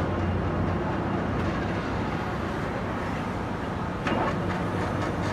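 Steady mechanical rumble of machinery running, with a few sharp clicks about four seconds in.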